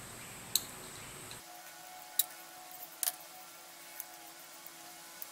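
Scattered small clicks and taps, about half a dozen, one of them doubled, as tiny nuts and studs and the thin brass shim cladding are handled while being fitted to a model steam engine's cylinder.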